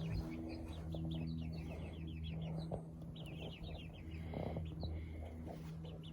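Young chickens cheeping: rapid runs of short, high chirps, over a steady low hum.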